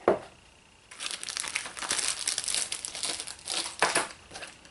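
Packaging being handled and crinkled while items are taken out of a box: a sharp click at the start, then about three seconds of dense crackling and rustling.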